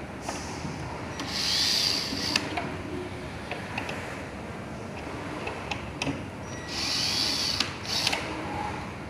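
Small electric screwdriver whirring in two short bursts several seconds apart, driving or backing out screws, with small clicks of handling in between.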